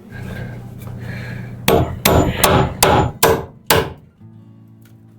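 A hammer striking wood about six times in quick succession, roughly two to three blows a second, each blow ringing briefly.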